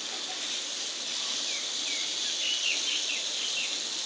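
Steady high-pitched drone of forest insects, with a quick run of short falling chirps in the middle.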